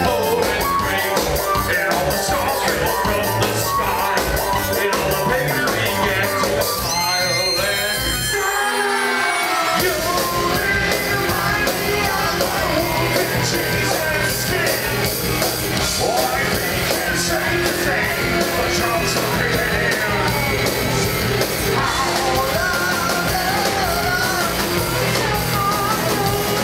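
A live rock band playing loudly, with electric guitar, drums and a vocalist singing. About eight seconds in, the low end drops out for a second or so before the full band comes back in.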